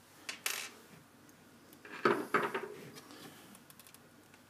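Light clicks and knocks of hands and a tool working the metal-and-plastic extruder and stepper motor assembly of a small 3D printer, with a louder short clatter about two seconds in.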